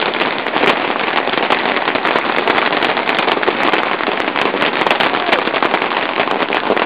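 Dense, unbroken barrage of fireworks going off, with rapid crackling and popping.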